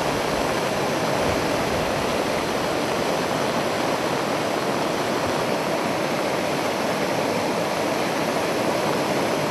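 Muddy floodwater rushing in a steady, unbroken torrent as a swollen stream pours over a low concrete causeway.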